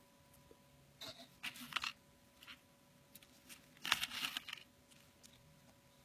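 Two short bursts of crinkly rustling and crunching, the first about a second in and a louder one near four seconds, with a few light clicks between them.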